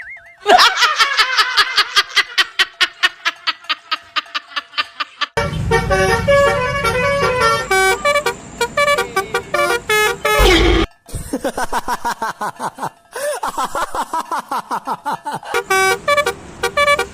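Telolet multi-tone bus horn: a rapid run of short honks, then a stepped melody of horn notes, a falling glide about ten seconds in, and more quick honks and melody after.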